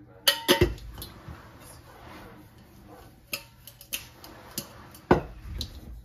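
Kitchen containers being moved and set down on a counter: a run of sharp knocks and clinks, the loudest near the start and about five seconds in, with faint rustling between them.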